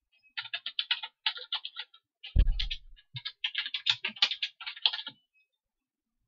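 Typing on a computer keyboard: a quick run of about twenty key clicks, with one heavier thump a little over two seconds in.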